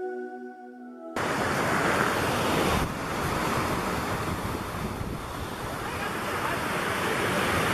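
Soft background music stops abruptly about a second in, giving way to a mountain creek rushing steadily over rocks and through a logjam of bleached logs.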